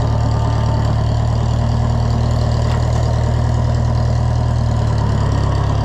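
Oliver 1250 (Fiat 415) tractor engine running steadily with an even, low-pitched drone.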